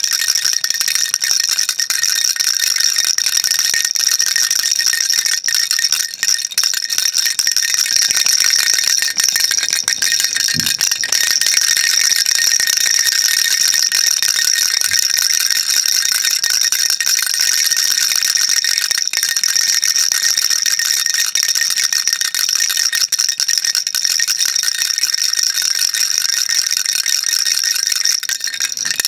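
Baby rattle shaken continuously: a steady, dense, high-pitched rattling without pauses.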